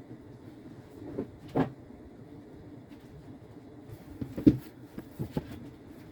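A few scattered knocks and thumps over a low steady background hum; the loudest comes about four and a half seconds in.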